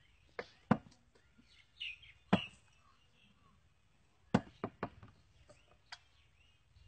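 Sharp short knocks and clicks, about seven of them at irregular spacing, three standing out louder, with faint bird chirps in the background.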